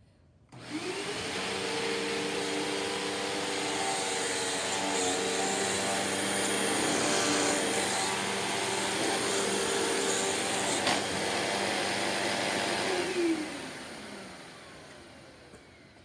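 Hoover Elite Rewind Plus upright vacuum cleaner switched on, its motor spinning up to a steady run with a single sharp click partway through. It is switched off near the end, and the motor winds down with falling pitch.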